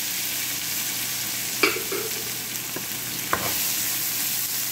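Chopped onions, garlic, ginger and chili sizzling as they fry in hot oil in a stainless steel frying pan, stirred around, with a steady hiss. Two sharp knocks stand out, the louder about a second and a half in and another about three and a half seconds in.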